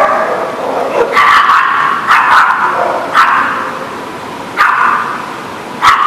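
Dogs barking during rough play-wrestling: a string of short, sharp barks, about one a second, some in quick pairs.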